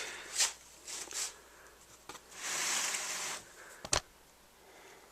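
Hand grease gun forcing grease into the nose sprocket of a chainsaw bar through its lube hole: a soft hiss of about a second, with a few light clicks before it and a sharper click just after.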